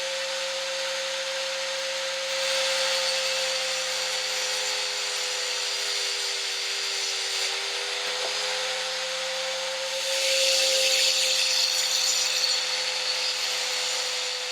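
Electric grinder running with a steady motor whine while it grinds down the steel arms of a steering wheel puller to make them thinner. The grinding hiss swells twice, a few seconds in and again about two-thirds through.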